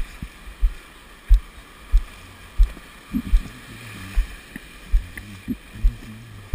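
A surfboard being paddled out through whitewater: a steady wash of water with dull low thumps about every two-thirds of a second, in time with the paddle strokes. Low grunts from the paddler come in around the middle.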